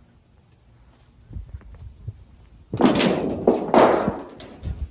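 Footsteps walking across a grass lawn, with two loud bursts of rustling about three and four seconds in.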